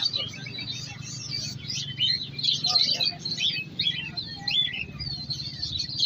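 Many caged songbirds chirping and whistling at once: a dense, overlapping chatter of short calls and quick rising and falling notes, over a low steady hum.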